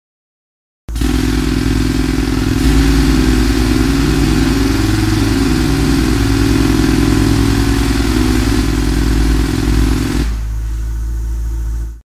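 Loud intro sound effect: a steady engine-like drone with several low pitches that shift about. It starts about a second in and drops a little in level near the end.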